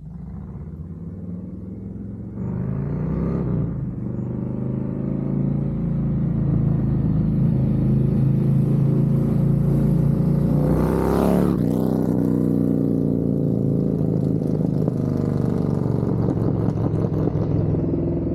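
2024 Harley-Davidson Road Glide's V-twin with a Screaming Eagle Stage 2 511 cam, running through a Thumper Moto 2-into-1 stainless steel exhaust as the bike gets under way. It grows louder over the first several seconds, revs rising about three seconds in, with a sharp change in pitch about eleven seconds in.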